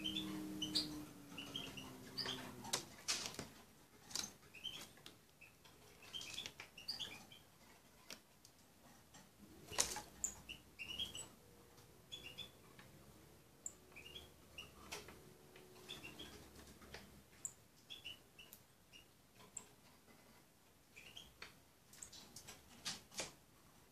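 Small finch pecking at berries on a windowsill: irregular soft clicks of its bill, with short high chirps of small birds scattered throughout.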